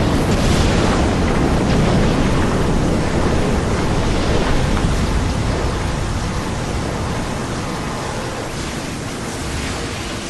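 Loud, dense rumbling noise from an edited monster sound effect, slowly growing quieter.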